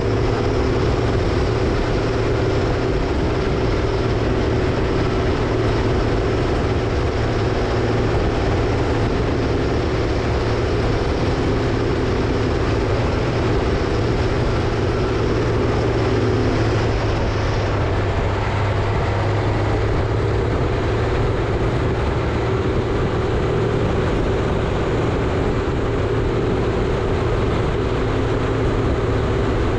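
Caterpillar 637C scraper's diesel engines running steadily under heavy load, a continuous loud drone.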